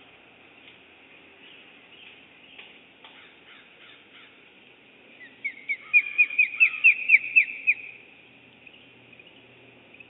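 Bald eagle giving its alert call: a quick run of about a dozen high, piping notes, each dropping in pitch, starting about five seconds in and lasting a little over two seconds.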